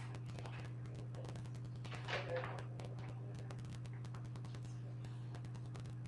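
A brief voice sound about two seconds in, likely a woman calling a puppy, over a steady low hum and frequent faint clicks.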